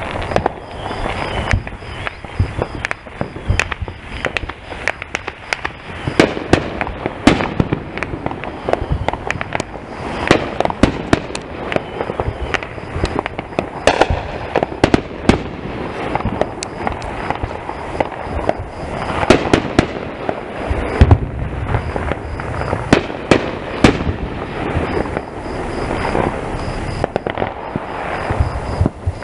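Fireworks going off nonstop: a dense run of sharp bangs and crackling pops, one after another, some much louder than others.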